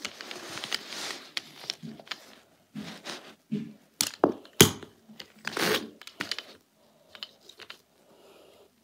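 Irregular rustling and crackling with several sharp clicks, the loudest click about four and a half seconds in, dying away near the end.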